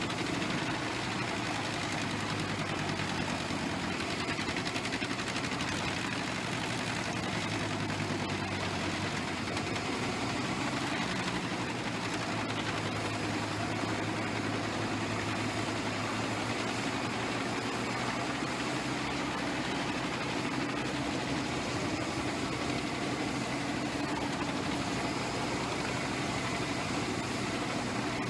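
Large wood chipper's engine running at a steady pitch, with no change in load.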